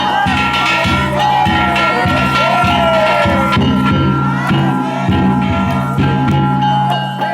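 Danjiri float music: a taiko drum beating steadily about twice a second under the continuous ringing of metal gongs, with voices calling out over it.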